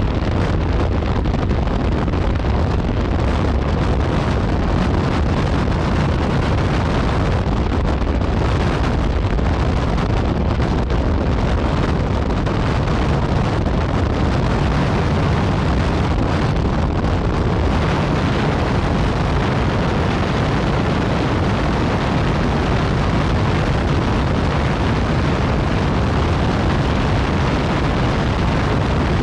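Yamaha MT-09 Tracer's three-cylinder engine running steadily through an aftermarket Akrapovic exhaust while riding, with wind rushing over the microphone.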